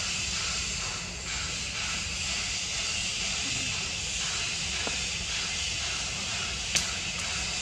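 Steady high-pitched drone of forest insects over a low rumble, with one sharp click about seven seconds in.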